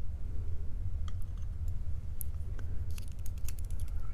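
Faint, scattered small metallic clicks and ticks from tweezers and a metal tool against a brass lock cylinder as its pins and springs are worked out of the chambers, bunching into a quick run near the end, over a steady low hum.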